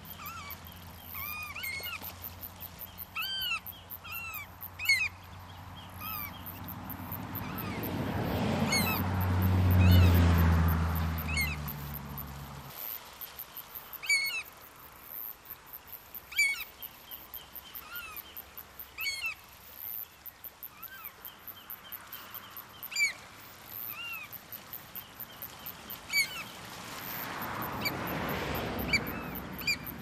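Variable oystercatchers giving short piping calls again and again over waves washing across rocks; the surf swells up twice, about a third of the way in and near the end. A low steady drone cuts off a little before halfway.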